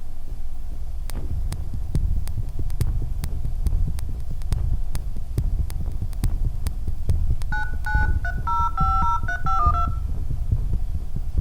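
A low throbbing drone under a steady run of sharp clicks, then, about seven and a half seconds in, a quick series of phone keypad touch tones as a number is dialed.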